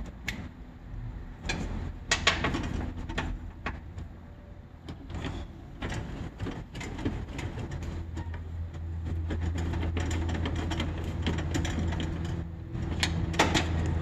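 Metal clicks and taps of a screwdriver and lock parts inside a car door as a replacement door lock is worked into place. From about halfway a steady low engine hum comes in and grows a little louder.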